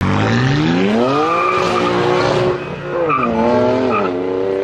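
Car engine accelerating hard: the pitch climbs steeply, then falls sharply twice as it shifts up through the gears.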